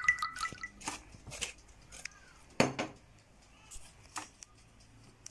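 A few scattered knocks and clicks of a wooden spatula against a baking tray and plates while spreading a filling, the loudest about two and a half seconds in. A chiming music phrase fades out at the very start.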